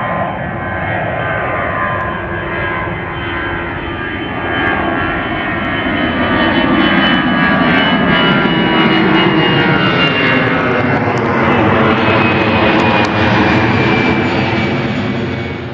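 An Airbus A320-214's twin CFM56-5B turbofans at climb power as the jet climbs away: a loud, steady jet noise with a swirling, phasing sweep and a high fan whine that drops slightly in pitch as the aircraft recedes. It grows louder about a third of the way in and holds.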